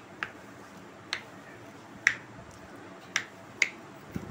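Plastic spoon clicking against the side of a glass bowl while mixing mashed boiled potato with spices: a series of short sharp clicks at irregular intervals, roughly one a second.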